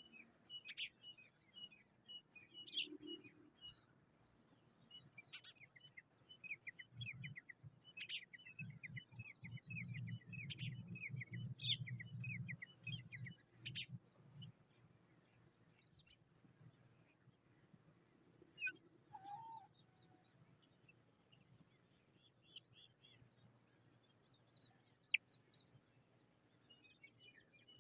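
A bird singing in repeated phrases of rapid, high chirps. A low rumble runs beneath the song for several seconds in the middle.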